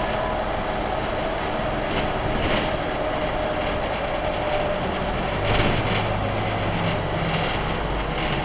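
Ride noise inside a Scania UNVI Urbis 2.5 DD CNG double-decker bus on the move, heard from the upper deck: a steady rumble of engine and road, with a faint hum and a few knocks and rattles from the body.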